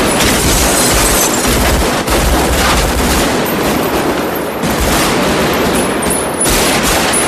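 Sustained automatic assault-rifle fire: rapid, overlapping bursts of gunshots, loud and continuous, with heavy low booms among them.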